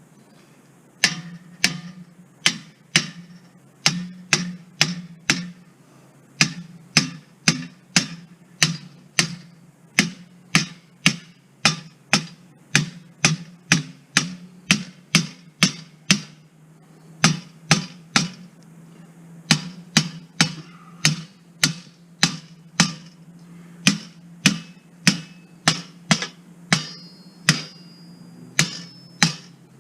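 A hand hammer striking a steel log rack made of pipe and rebar, pounding it down with a steady run of blows, about two a second, with a few short pauses. Near the end some blows leave a brief metallic ring.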